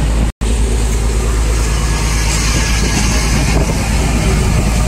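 Vehicle ferry's engine running steadily: a low hum under a rushing noise. The sound drops out for an instant just after the start.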